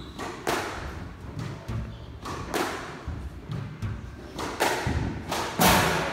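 Squash rally: the ball is struck by rackets and smacks off the court walls, giving a sharp hit every second or so with ringing after each. The loudest hit comes near the end.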